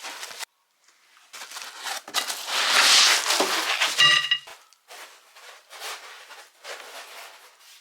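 Foam packing and wrapping being handled and pulled from a cardboard box, with irregular rustling and crinkling that is loudest about two to three seconds in. A brief squeak comes about four seconds in.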